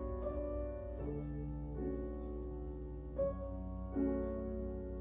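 Background music, a slow melody of held notes that change about once a second.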